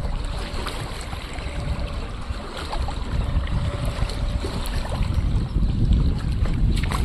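Gusty wind buffeting the microphone over the splash of wind-driven river waves.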